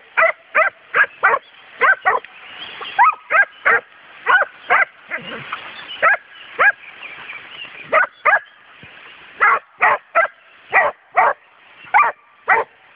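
Pack of Serbian tricolour hounds barking in quick, sharp barks, about two a second with a couple of short lulls, baying at a wild boar.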